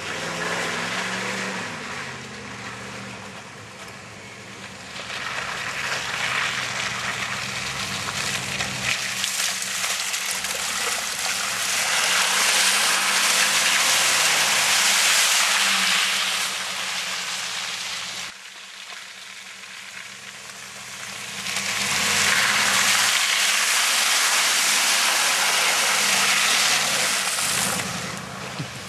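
Chevy Silverado pickup engine revving up and down several times while driving through mud, with a loud rushing hiss of spinning tyres spraying mud and water. The sound breaks off sharply about two-thirds through, then the revving and hiss build again.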